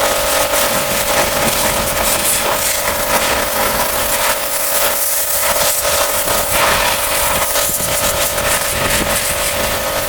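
A cleaning machine's motor running steadily: a constant hum of several steady tones under a rough hiss, with some scraping and rubbing.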